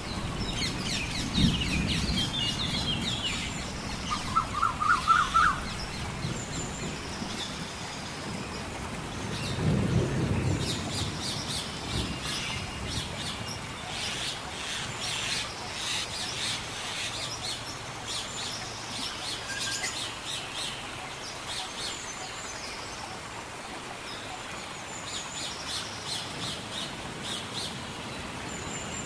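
Forest ambience of many birds chirping and calling, with a quick run of rising notes about four seconds in as the loudest moment. Low rumbles come near the start and again around ten seconds in.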